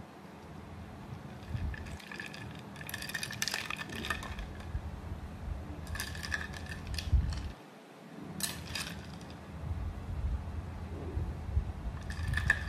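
Someone sipping a drink from a mug: several short sips with pauses between, over low handling noise.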